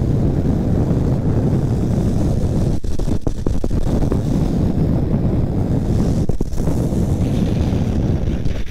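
Wind rushing over the microphone and the steady rumble of longboard wheels on wet asphalt at downhill speed, with a few sharp knocks about three seconds in and again a little past six seconds.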